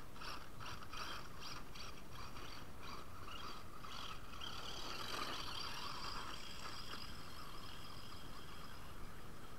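Radio-controlled car running over loose dirt: a steady crackle of tyres and grit, with faint ticks in the first few seconds and a faint high motor whine.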